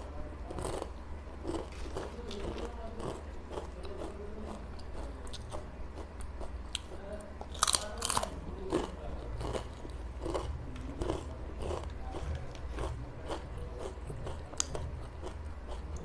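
Potato chips being bitten and chewed close to the microphone: a run of crisp crunches, with the loudest crunching bites about halfway through.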